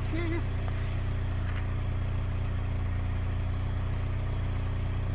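Vehicle engine idling: a steady low hum that holds an even pitch and level.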